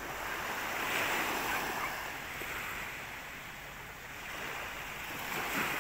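Small waves washing onto a beach on a calm sea, the surf swelling about a second in and again near the end.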